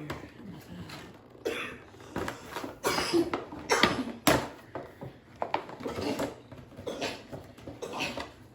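Gift wrapping and packaging being rustled and torn open by hand, in a run of short, irregular crackling bursts.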